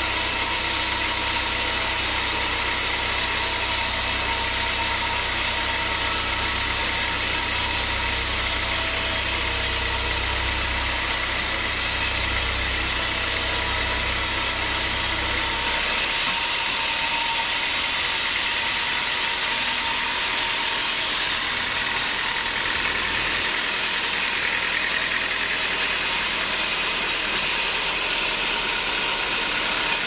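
Large band sawmill running and sawing through a big log: a steady, loud mechanical whir with a high steady tone over it. A deep rumble underneath drops away about halfway through.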